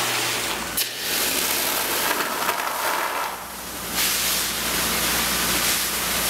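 Water spraying from a fire hose nozzle: a steady hiss, with one sharp click about a second in, a brief dip in the middle, and fading out at the end.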